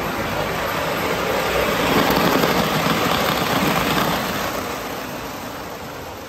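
Model train running fast past on metal track, the rolling noise of its wheels and motor swelling to a peak about two to four seconds in, then fading as it moves away.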